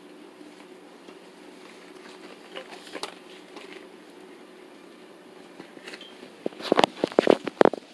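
Husky puppy mouthing and pawing at the vinyl floor: a faint room hum, then in the last second and a half a rapid, irregular run of sharp clicks and taps from teeth and claws on the hard floor.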